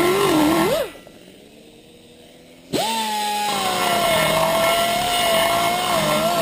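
Die grinder grinding the aluminium exhaust port of a Jeep 4.7 V8 cylinder head: a high whine whose pitch wavers as the bit bites into the metal. Just under a second in it rises, is let off and spins down. Near three seconds it starts up again at a higher pitch, then drops and wavers as it cuts again.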